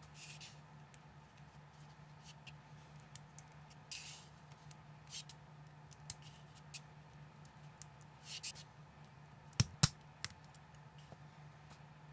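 Small plastic LEGO-compatible bricks being handled and pressed together by hand: scattered light clicks and short scrapes, with two sharp snaps close together about three-quarters of the way through, over a low steady hum.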